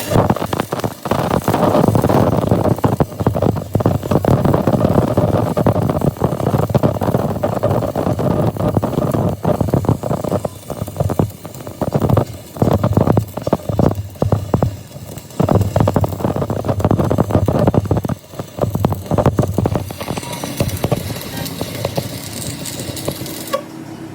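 Loud, rough, crackling metalworking noise on a bulldozer drive hub gear, stopping and starting several times near the middle.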